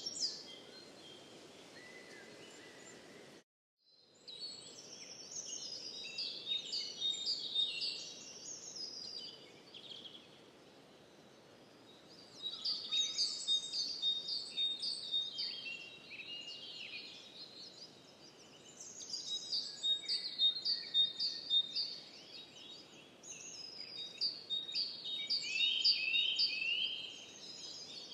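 Songbirds singing in bouts of rapid, high chirps and warbling phrases over a steady background hiss, with the birds going quiet for a few seconds between bouts. The sound cuts out completely for about half a second, about three and a half seconds in.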